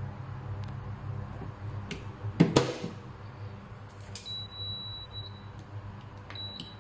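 A loud clunk about two and a half seconds in as the Tefal electric rice cooker's lid shuts, then the cooker's control panel beeps: a long high beep about four seconds in and a short one near the end as its buttons are pressed to set it cooking.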